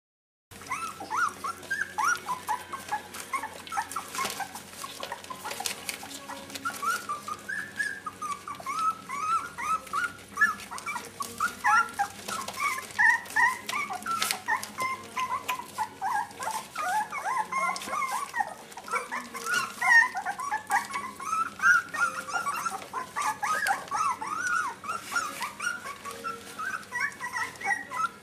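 A litter of three-week-old border collie puppies whimpering and squeaking without pause: many short, high cries overlapping one another, starting about half a second in.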